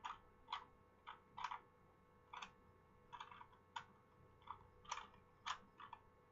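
Plastic Rubik's speed cube being turned by hand: about ten quick, irregular clicks as its layers are twisted.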